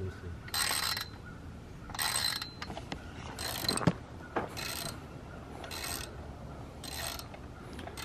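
Socket ratchet wrench clicking in six short runs, about one every second and a bit, as a bolt is tightened by hand stroke by stroke.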